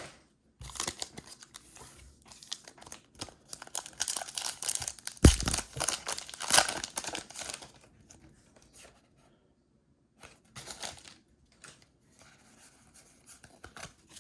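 Pokémon card pack packaging being torn open and crinkled: irregular bouts of tearing and rustling, heaviest in the middle, with a soft thump about five seconds in, then a few lighter crinkles.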